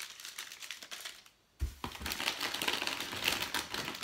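Packaging crinkling and rustling as a hand rummages through a box of groceries, with a soft low thump about one and a half seconds in.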